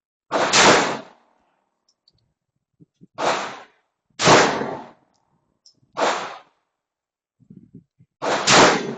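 Airsoft gun firing five single shots at steel targets, irregularly a second or two apart. Each shot is a sharp crack with a short ringing tail.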